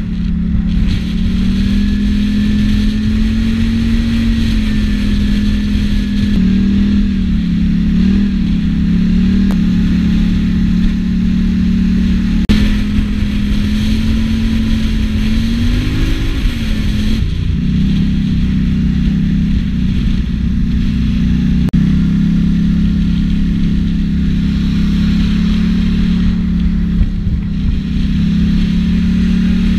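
Quad bike (ATV) engine running at a steady cruising speed, heard from the rider's seat. The note holds fairly even with small rises and dips, and jumps abruptly twice.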